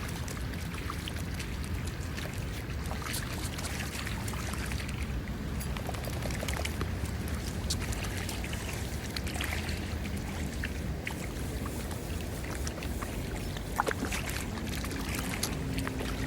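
Flood water sloshing and splashing as a dog wades through it, with a steady low rush of water and many small, sharp splashes throughout.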